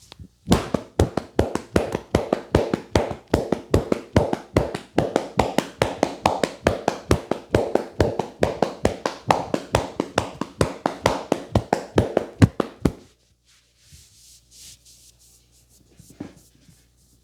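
Rapid, even hand strikes of a percussive head massage, about five or six slaps a second, that stop abruptly about four seconds before the end, leaving only faint, scattered touches.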